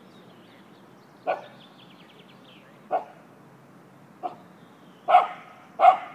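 Dog barking: five single, sharp barks, spaced more than a second apart at first and coming faster near the end.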